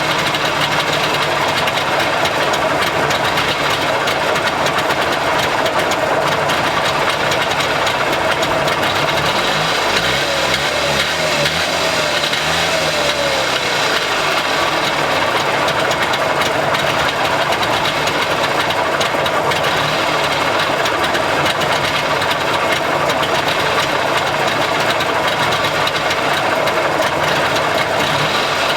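Trabant 601's air-cooled two-stroke two-cylinder engine idling steadily while stationary. The pitch wavers briefly about ten seconds in, then settles back to an even idle.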